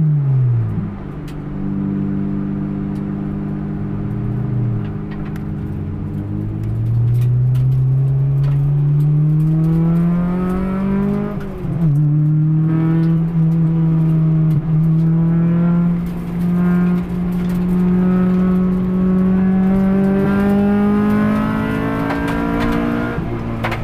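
Honda B18C four-cylinder engine, with an upgraded intake and exhaust, heard from inside the stripped cabin of a Civic EG6 on track. Its pitch falls at the start, then climbs steadily under acceleration. About twelve seconds in it drops sharply at a gear change, climbs again, and falls off near the end as the car slows for a corner.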